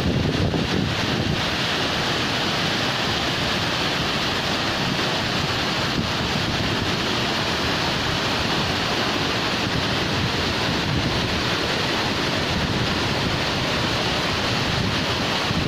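Waterfall: water falling and rushing steadily, a constant even noise with no let-up.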